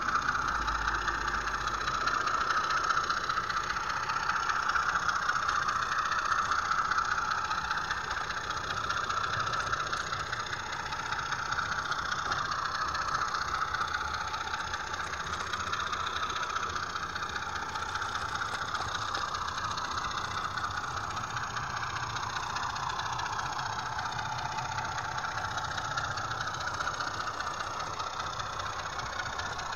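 00 gauge model train running along its track: a steady mechanical whirr of the small electric motor and wheels on the rails, wavering slightly with speed, heard from the camera riding on the train.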